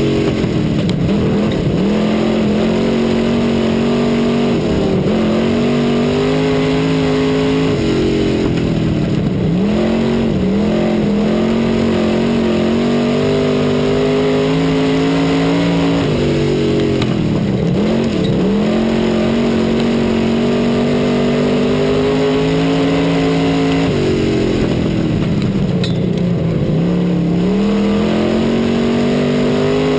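Dirt-track race car engine at racing speed, heard from inside the cockpit. Its pitch drops and climbs back again roughly every eight seconds as the throttle is lifted for the turns and reapplied on the straights.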